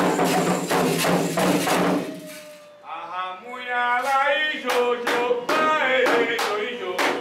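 Candomblé ritual music: drums and singing, which drop away about two seconds in. A voice then sings a chant with gliding pitches, joined by regular sharp percussion strikes.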